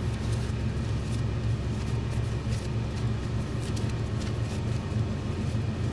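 Old Monarch metal lathe running steadily with a low, even hum and a few light clicks.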